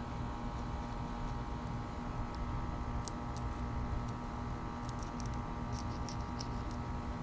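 Fillet knife working along a spotted sea trout's backbone, a few faint scratchy ticks as the blade meets the bones, over a steady machine hum.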